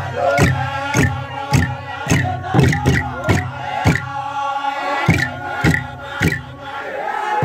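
A group of men chanting together over steady beats on wooden drums, including a slit-log drum, at roughly two strikes a second, with a brief pause in the drumming near the middle.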